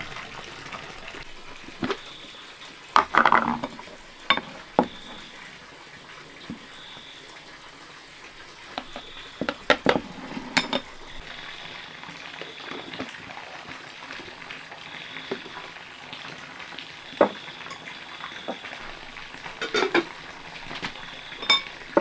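Scattered knocks and clatters of objects being handled, some in quick clusters, over a steady low hiss, with a faint high tone coming and going.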